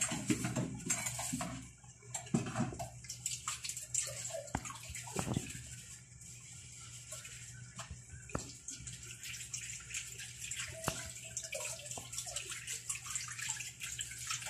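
Water at a boil in a stainless steel pot with spaghetti cooking in it: a bubbling hiss broken by many irregular pops and clicks, over a steady low hum.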